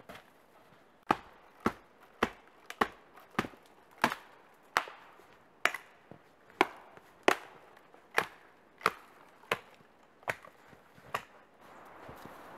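A hand tool chopping with about fifteen sharp, evenly paced strikes, roughly three every two seconds, that stop shortly before the end.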